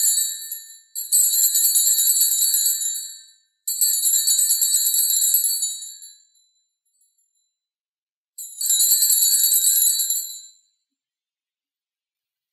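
Altar bells jingling in bursts at the elevation of the chalice after the consecration: one ringing dies away at the start, two more follow back to back, and after a short pause a last burst, each about two and a half seconds long.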